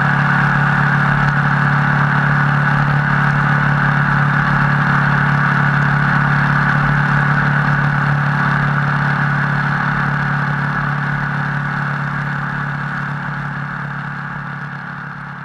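Moto Guzzi 1200 Sport's air-cooled V-twin running steadily at a constant cruising speed in the rain, under a steady hiss of wind and wet road. Fades out toward the end.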